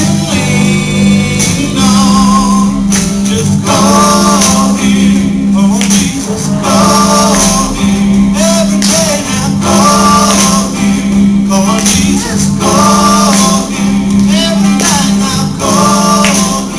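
Upbeat gospel song with singing, tambourine and a steady backing track.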